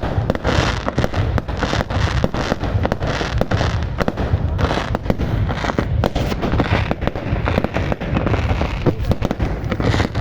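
Fireworks display going off in a dense, unbroken barrage of bangs and crackling over a low rumble.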